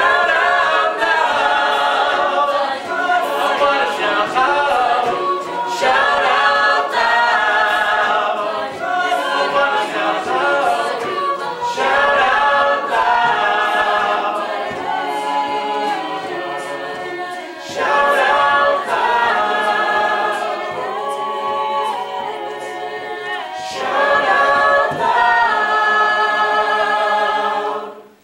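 Mixed-voice a cappella group singing in close harmony, a lead singer on a microphone over the backing voices. The final chord cuts off sharply near the end.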